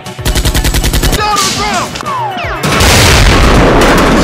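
Dubbed action sound effects: a rapid burst of machine-gun fire lasting about a second, then a loud, long explosion boom starting about two and a half seconds in.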